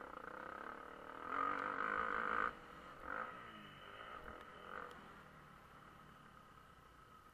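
Motocross bike engine revving hard from about a second in, cutting back sharply a second later, then giving a couple of short throttle blips before settling lower.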